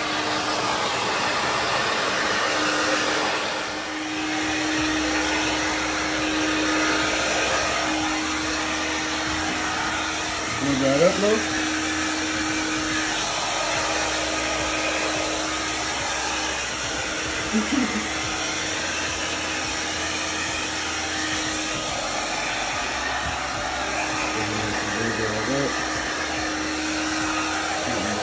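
Handheld blow dryer running steadily on a wet French bulldog's coat: a constant rush of air with a steady hum under it. Two brief gliding sounds rise over it, about eleven and eighteen seconds in.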